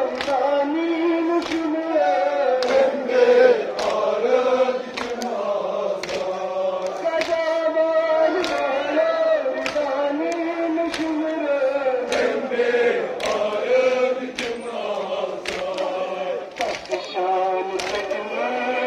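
Group of men chanting a Shia nauha (mourning lament) together, with sharp chest-beating slaps of matam landing about once a second.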